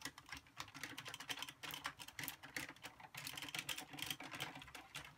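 Hard plastic pieces of a Power Rangers Tigerzord Megazord toy clicking and rattling in quick, irregular taps as the parts are worked and fitted together by hand.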